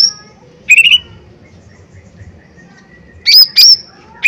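Lesser green leafbird (cucak ijo mini) giving loud, sharp calls: one short burst about a second in and a pair of calls near the end, with a quiet gap between.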